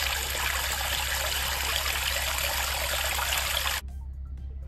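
Water being poured steadily into a container, a continuous splashing rush that stops abruptly near the end.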